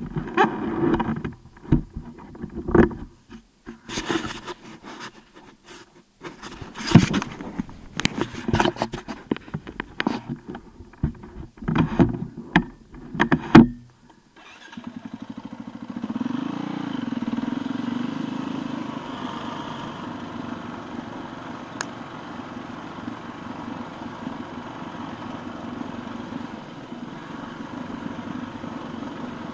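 Enduro motorcycle engine: irregular bursts and knocks with gaps for about the first half, then it runs steadily, with a brief rise and fall in revs soon after it settles.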